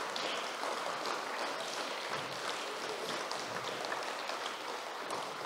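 Crowd noise of a large roomful of students getting to their feet: a steady rustle and shuffle with faint chatter.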